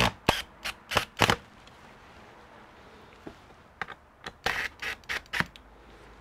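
Short, sharp clicks and knocks from gloved hands and a tool on a laptop's bottom cover. There are four in the first second and a half, then a denser cluster a little past the middle.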